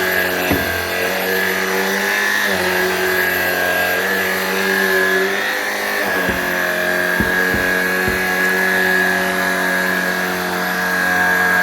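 Shark Rocket PowerFins cordless stick vacuum running steadily on carpet, with a constant motor hum and high whine, and a few short knocks in the middle.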